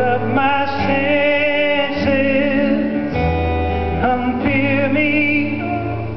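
Live acoustic music: voices singing long held notes with vibrato over acoustic guitar and keyboard accompaniment.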